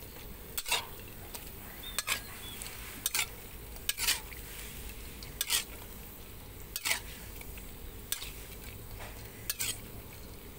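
Metal spatula scraping and scooping against a metal wok about once every second or so, over a steady sizzle of dried rice frying in a little oil.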